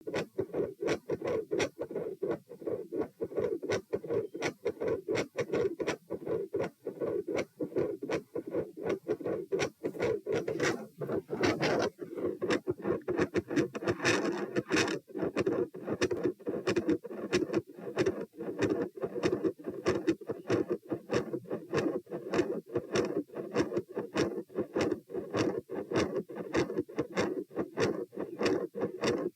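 Human heartbeat through a stethoscope at the pulmonic area: a regular beat at about 90 beats a minute, with a mid-systolic murmur between the beats. There are brief rubbing noises around the middle.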